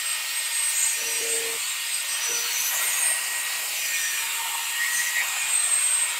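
Corded electric drill spinning a wet 500-grit sanding pad against a plastic headlight lens: a steady motor whine over the hiss of the sandpaper, as it wet-sands glue residue off the lens.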